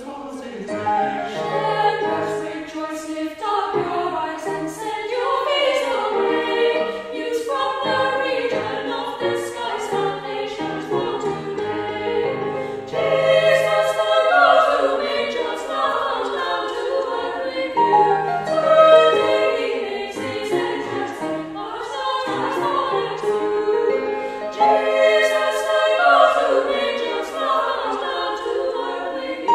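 A small mixed choir singing a carol in harmony, the voices ringing in a stone church.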